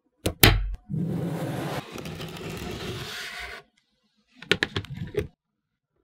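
Small magnetic balls clicking sharply together, followed by about three seconds of steady scraping, as of balls rolled or slid over a hard surface, then a quick run of clicks as more balls snap into place.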